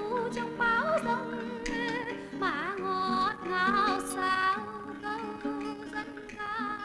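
A woman singing with vibrato over instrumental accompaniment.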